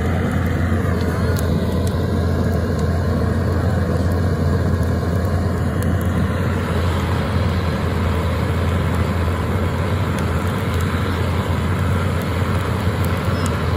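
LPG torch burner running steadily with a loud, even roar, its flame blasting into the base of a log fire to get it going, with a few faint crackles from the burning wood.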